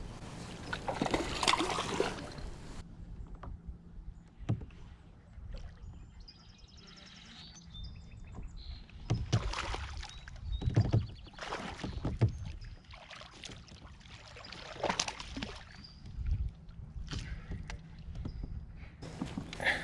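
Kayak on the water: irregular splashes and knocks of water and handling against the hull, in short bursts over a steady low rumble.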